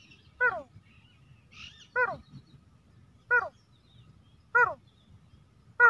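A man imitating the call of a female teetar (grey francolin) through his nose, with his hand cupped over it: five short, sharply falling calls, about one every 1.3 seconds.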